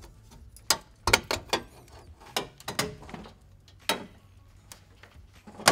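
Plastic pinch clips releasing and a truck's factory plastic grille clattering as it is worked free by hand: a string of about ten sharp, irregular clicks and knocks.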